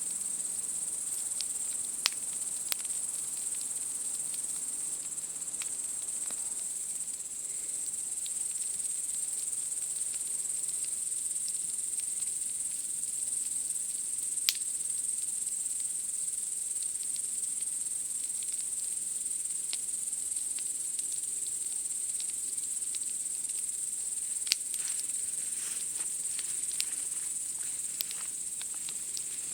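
Steady high-pitched chorus of night insects chirping without a break, with sharp pops and crackles of a wood campfire every few seconds, more frequent near the end.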